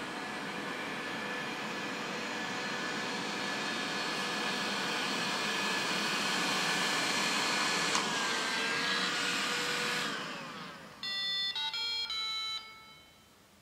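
iRobot robot vacuum cleaners running, a steady whirr of motors and brushes with a thin whine, growing slowly louder before winding down about ten seconds in. About a second later comes a short electronic beeping tune of several stepped notes.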